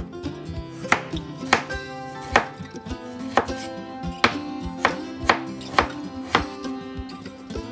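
Kitchen knife slicing raw peeled potatoes into rounds, the blade knocking on a bamboo cutting board with each cut, about nine knocks at an uneven pace.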